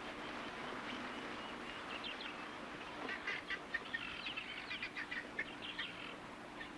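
Birds chirping in the background: many short, quick calls, coming thicker from about three seconds in.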